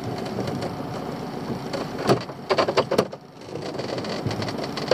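Wet pot rope hauled hand over hand up over the side of a small boat, a steady rough rubbing with a few sharp clicks about two to three seconds in.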